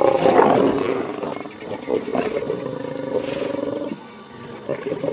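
Lions growling at each other while feeding on a wildebeest carcass, a warning over the food: one long, deep growl that is loudest at first and stops about four seconds in, then a short growl near the end.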